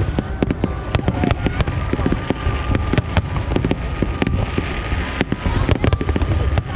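Fireworks display: a dense, rapid barrage of bangs and crackling shell bursts over a constant low rumble, with a steady high tone running through much of it.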